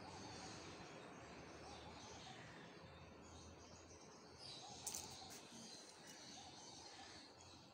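Near silence with faint background chirping, and a brief light clinking of metal keyrings on resin letter keychains being handled, about five seconds in.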